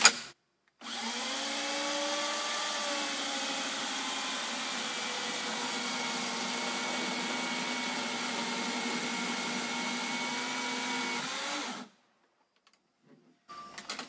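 Electric chainsaw, mounted in a rail-guided guillotine rig, running as it square-cuts through a timber beam: a steady motor whine comes in about a second in, its pitch sagging slightly as it starts, holds even through the cut, and cuts off suddenly near the end.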